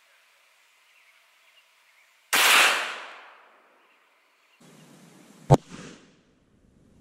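A 9mm pistol firing a single 147-grain hollow point about two seconds in: a loud sudden report that echoes away over about a second. A second, sharper single crack comes about five and a half seconds in.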